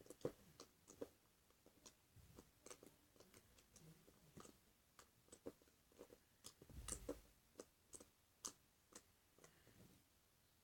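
Glossy clicky slime being squished and worked by hand, giving faint, irregular little clicks and pops, with a louder cluster of them about seven seconds in.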